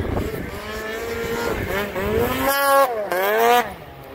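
Snowmobile engine revving as the sled climbs toward and past the camera, its pitch rising and falling twice in the second half. The engine note falls away sharply about three and a half seconds in.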